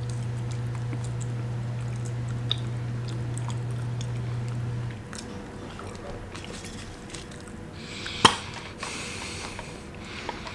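Two people chewing mouthfuls of soft, jelly-like century egg (preserved duck egg), with faint wet mouth clicks. A steady low hum stops abruptly about five seconds in, and a single sharp click comes about eight seconds in.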